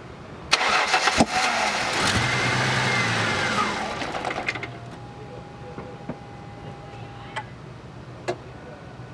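Ford Mustang engine cranking and catching about half a second in. It runs for about three seconds with its revs falling away, then dies. It runs only on a little fuel added to the intake, a sign that the fuel system is not delivering fuel to the engine. A few faint clicks follow.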